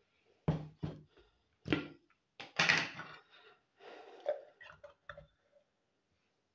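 A glass blender jug set down with a couple of knocks, then a wooden spoon knocking and scraping against the inside of the jug through wet, freshly ground rice.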